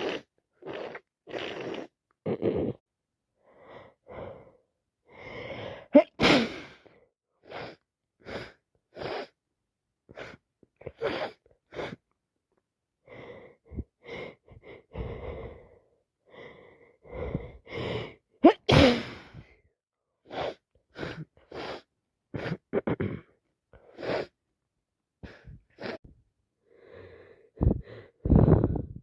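A woman sneezing over and over, with short breaths, gasps and sniffs between the sneezes; the two sharpest, loudest sneezes come about six seconds in and again near nineteen seconds. It is the non-stop sneezing of a cold on top of hay fever.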